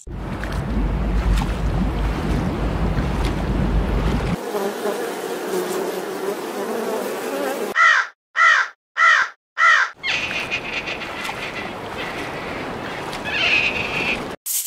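A crow cawing four times in quick succession, about eight seconds in, each call harsh and short. Before and after the calls there are stretches of steady outdoor noise.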